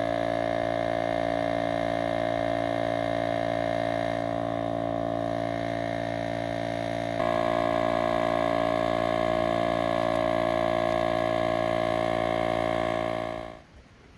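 Electric air pump running steadily as it inflates an inflatable tent, a continuous motor hum that shifts up in tone and loudness about halfway through and cuts off near the end.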